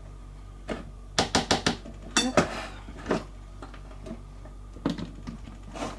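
Sharp plastic knocks and clicks from handling a small electric food chopper's bowl, spatula and lid, with a quick run of four or five taps about a second in and a short rattle soon after.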